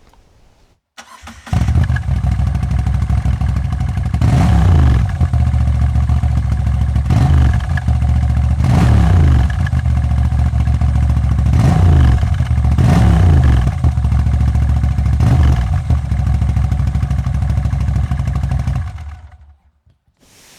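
Moto Guzzi V85TT's air-cooled transverse V-twin breathing through its stock exhaust: it is started about a second in, idles, and is blipped six times, each rev falling back to idle, then it is switched off shortly before the end.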